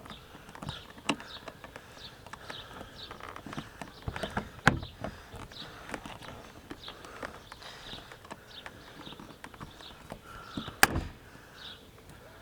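Hand pop rivet gun being squeezed over and over, its jaws clicking as they pull on a blind rivet's stem. Near the end there is a single sharp snap, the loudest sound here, as the stem breaks off and the rivet sets.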